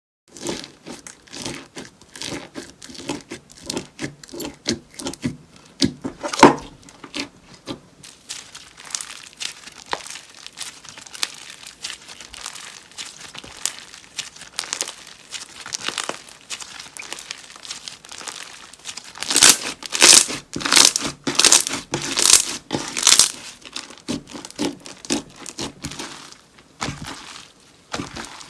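Slime being squeezed and played with by hand: a continuous run of crackling clicks and crunches, with a louder stretch of sharp crackles about two-thirds of the way through.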